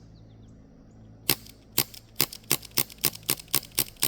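Umarex Brodax CO2 BB pistol firing as fast as the trigger can be pulled: a sharp crack about a second in, then about four cracks a second. The shooter believes the gun is out of CO2.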